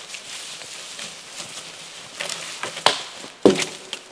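Footsteps crunching through dry leaves and twigs on the forest floor, with dead branches rustling and knocking as they are carried. The steps grow louder as they near, the loudest crunch about three and a half seconds in.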